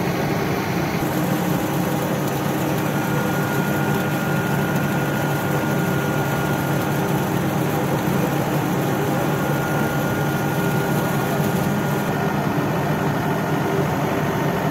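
Belt-driven induced-draft centrifugal fan running steadily on its electric motor during a trial run: a constant rushing hum of air and machinery. A faint thin whine sits on top from a few seconds in until near the end.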